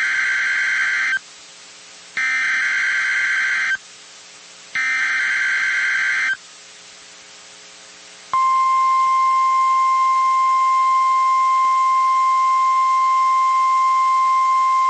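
Three bursts of EAS SAME header data, a buzzy two-pitch digital warble lasting about a second and a half each with a short gap between, encoding the next alert. Then, about eight seconds in, a steady 1050 Hz NOAA Weather Radio warning alarm tone starts and holds, signalling that a warning follows.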